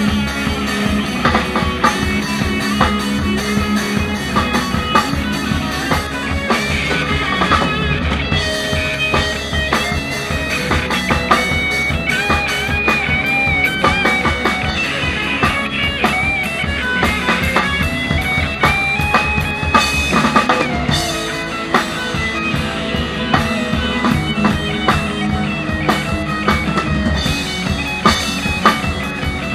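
A psychedelic stoner-rock band playing live: electric guitars over a drum kit, with a high lead guitar line stepping from note to note through the middle of the passage.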